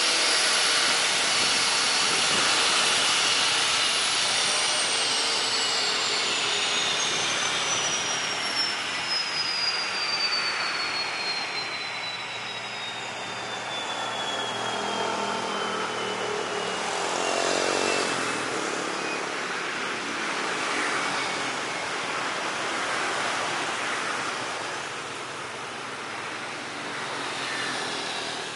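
Turbine whine and hiss from a parked C-130 Hercules with its propellers stopped. A thin high whine falls slowly in pitch over about fifteen seconds as a turbine winds down, and a lower falling tone follows near the end of that.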